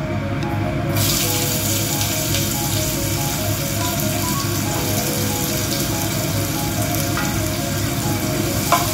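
Sliced onions hitting hot oil in a nonstick frying pan and sizzling steadily as they fry for beresta; the sizzle starts about a second in.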